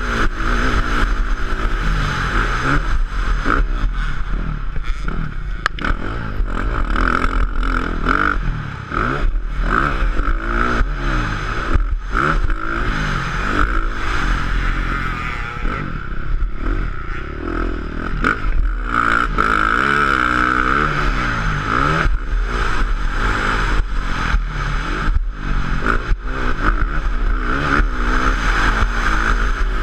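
450cc four-stroke motocross bike engine revving hard and dropping off again and again as the rider accelerates, shifts and backs off around the track, with rattling and scraping from the bike over rough dirt.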